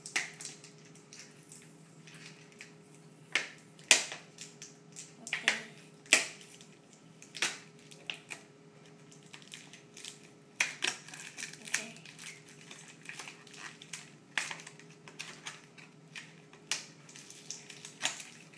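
Plastic toy packaging and sticky tape being picked at and pulled open by hand: irregular crinkles and sharp crackles, a few louder snaps among them.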